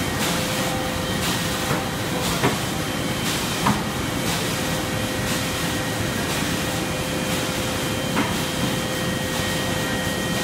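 Müller Martini Presto saddle stitcher running in production: a steady mechanical clatter and hum with a faint regular beat, and a few sharper knocks about two and a half, nearly four and eight seconds in.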